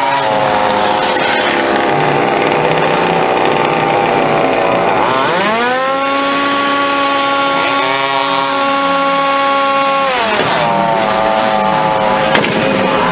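Small two-stroke engine of a radio-controlled model car running loud and buzzy, revved up about five seconds in and held at a high steady pitch for about five seconds for a decibel reading, then dropping back to a lower speed.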